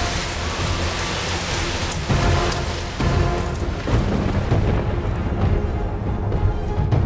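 Thunderstorm: steady heavy rain with low rolling thunder that swells up a few times.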